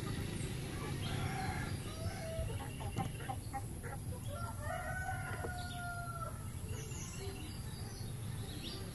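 A rooster crows once, a long held call of about two seconds around the middle, with a few short clucks in the first half.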